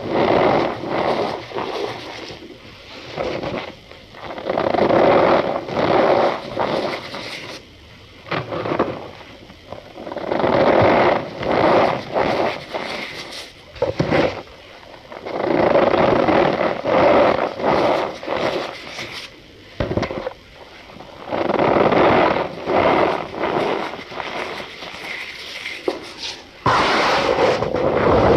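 Cornstarch powder being pressed and squeezed, giving a squeaky crunching sound in repeated strokes a second or two long, with short pauses between them.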